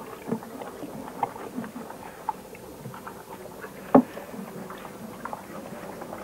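Horse in a straw-bedded stall making scattered light rustles and taps as it shifts about, with one sharp knock about four seconds in.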